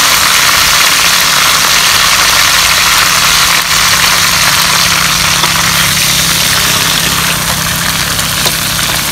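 Field rats frying in a wok over a wood fire: a loud, steady sizzling hiss, with a low steady hum underneath.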